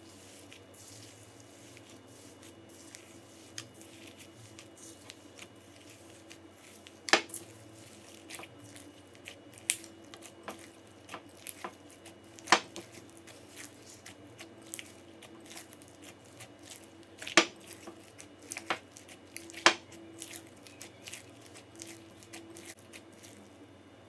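Crunchy slime being squeezed and worked by hand: scattered small crackles and pops, with a few much louder snaps now and then.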